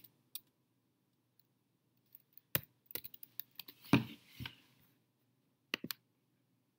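Scattered keystrokes on a computer keyboard as a search is typed and entered, with a pair of clicks near the end.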